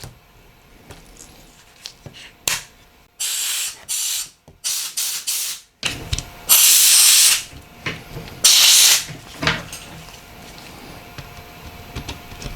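An aerosol can hissing in a run of short sprays about three seconds in, then two longer sprays, with a few light clicks of small parts being handled before them.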